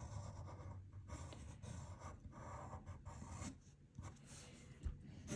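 Faint scratching of a pencil on paper as lines are sketched.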